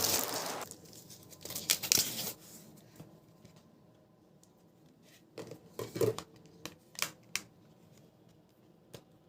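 Hands handling a new smartphone and its packaging: soft rustles about two seconds in, then a cluster of light clicks and taps in the middle and a last click near the end. Background music cuts off at the start.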